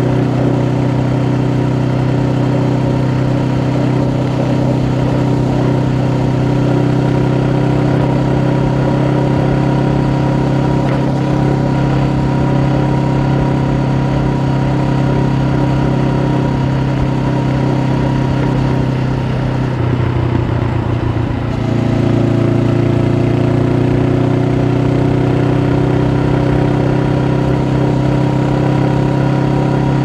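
Honda CB500F's 471 cc parallel-twin engine through its stock exhaust, running at a steady cruise as heard from the bike. About two-thirds of the way through the engine note dips briefly, then runs steady again.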